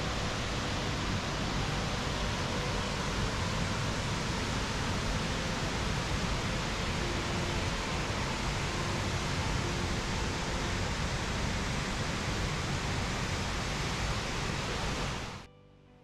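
Burney Falls waterfall: a steady rush of water pouring down the cliff into its plunge pool, cutting off suddenly near the end.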